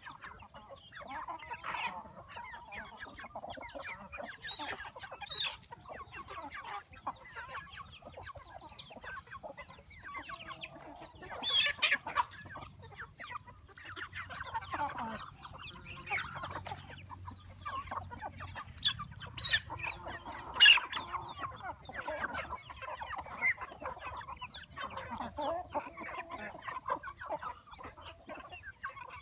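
Chickens clucking steadily: many short calls overlapping, with a few louder calls standing out near the middle and about two-thirds of the way through.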